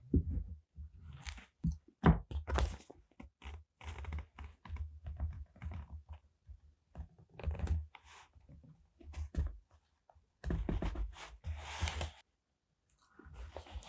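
Close-miked paper and sticker handling for journaling: irregular crinkles, rustles and short tearing sounds with soft taps and bumps on the desk, pausing briefly near the end.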